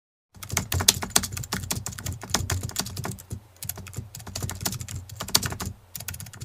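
Keyboard typing sound effect: rapid, irregular key clicks with a couple of brief pauses, starting about a third of a second in, laid over on-screen text being typed out.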